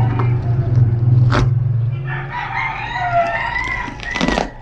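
A rooster crowing about two seconds in, one long call with a wavering pitch, while a utility knife slices and rustles bubble wrap. A steady low hum stops about two seconds in.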